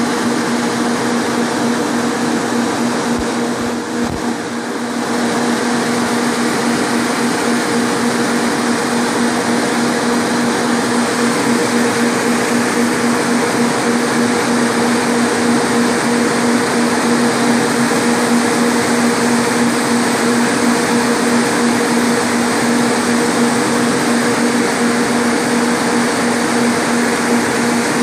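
Electric radiator cooling fans running steadily: an even rush of moving air over a constant hum from the fan motors and blades. The fans are drawing air, and the smoke with it, through the radiator.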